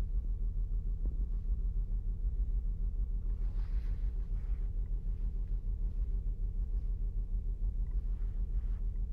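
2008 Saturn Outlook's 3.6-litre V6 running with a pulsing, uneven low rumble, the sign of the cylinder 1 misfire (code P0301) being diagnosed.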